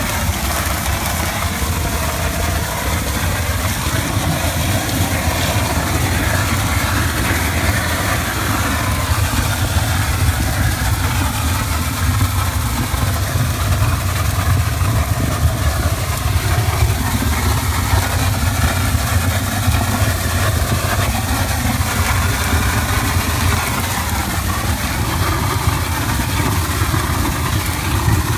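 Engine of shotcrete equipment running steadily, with a constant rushing hiss over its low rumble.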